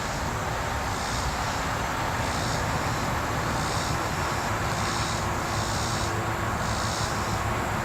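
Cicadas calling, a high buzz that swells and fades in an even pulse about once every 0.7 seconds, over a steady low rumble.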